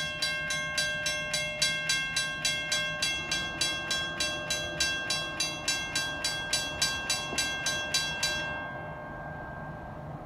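Railroad crossing bell ringing in rapid, even strikes, about three and a half a second, as the crossing activates and the gates lower. The bell falls silent about eight seconds in, once the gate arms are fully down.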